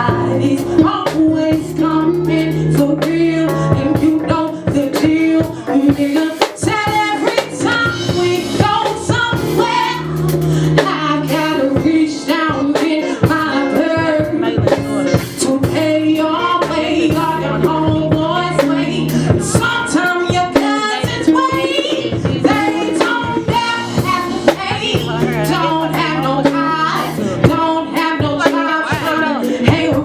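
Live band playing a song with a lead vocal, backed by drums, bass and keyboard with a steady beat.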